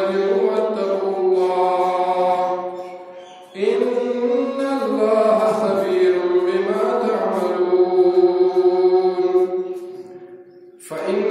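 A man's voice chanting Quranic verses in Arabic in melodic recitation style, with long held, wavering notes. He pauses for breath about three and a half seconds in and again near the end.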